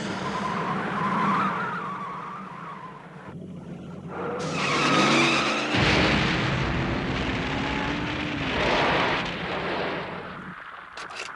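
Film sound effects of vehicles: an engine hum under tyre skids, with noisy swells coming and going and a few sliding pitch glides around the middle.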